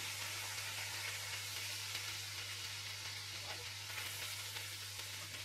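Seasoned steaks sizzling in hot fat in a cast-iron skillet while tongs lift them out of the pan, a steady hiss with a low hum underneath.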